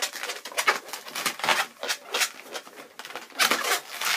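Black latex twisting balloon squeaking and rubbing in the hands as small round bubbles are twisted into it: a run of short, irregular squeaks.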